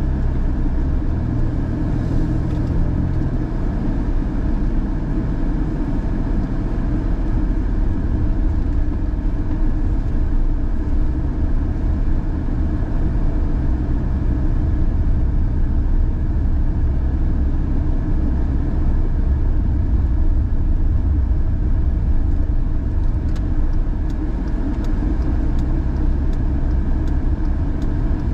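Car driving, heard from inside the cabin: a steady low rumble of engine and tyres on the road, with a few faint clicks near the end.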